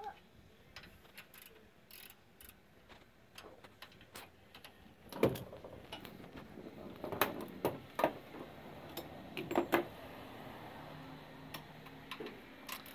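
Scattered clicks and knocks of tools and parts being handled, the loudest about five seconds in, with a faint low steady hum through the second half.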